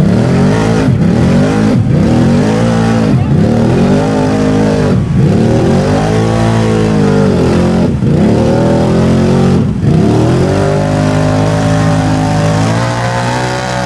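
Lifted mud-racing ATV's engine revving hard, again and again, as its big mud tires spin and churn through deep mud. The revs climb and drop every second or two, then hold high near the end.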